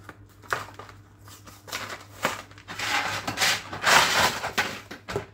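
Frozen fish fingers tipped out of a cardboard box onto a metal baking tray: the box rustling, with scattered clicks as the fingers slide out and knock onto the tray, loudest about three to four and a half seconds in.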